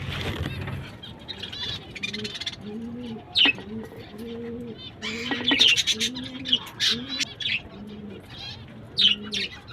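A pigeon cooing in a steady rhythm, about two low coos a second, while small parrots give sharp high chirps over it in bursts. A low hum dies away in the first second.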